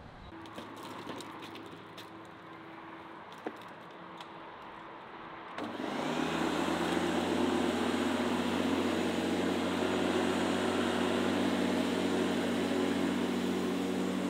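Corded electric lawn mower motor switching on about five and a half seconds in and running with a steady hum. Before it, quiet yard sound with a few faint clicks.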